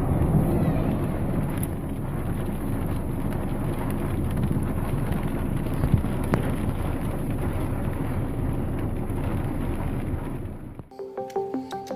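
Steady roar of strong wind buffeting the microphone, with rain, during a tornado; a couple of sharp clicks around the middle. It cuts off about a second before the end, and plucked music begins.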